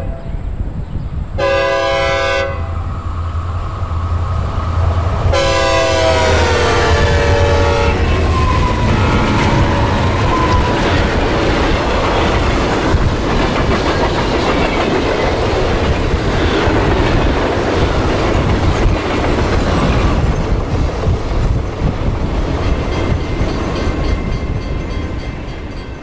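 Synthesized recreation of a Nathan K5H/K5L "raised letter" train air horn sounded by a passing train. There is a short chord blast about a second and a half in, then a longer blast about five seconds in that drops in pitch as the train passes (Doppler effect). It is followed by a long, loud rumble and clickety-clack of the train going by, which fades near the end.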